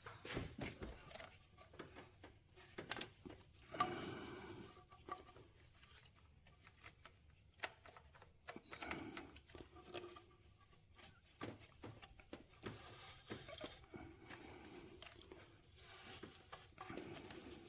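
Faint handling sounds of a rubber heater hose being worked out through a retaining clip in an engine bay: scattered light clicks, with rubbing and scraping that come and go.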